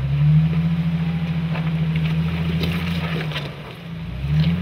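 Rock-crawling Jeep's engine revving hard under load as it climbs a rock ledge: the revs rise and hold for about three seconds, drop off briefly, then rise again near the end. A few sharp knocks of tyres and chassis on rock.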